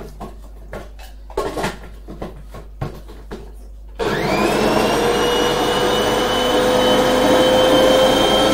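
A few light knocks and clatters of pots. Then, about halfway through, a kitchen appliance's electric motor switches on abruptly and runs with a steady whir and a high whine over it.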